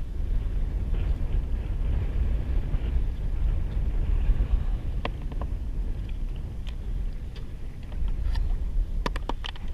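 Steady wind rumble on the microphone, with a few sharp clicks and knocks about five seconds in and a cluster near the end, as a hook is worked out of a small blacktip shark's mouth with a tool on a plastic kayak deck.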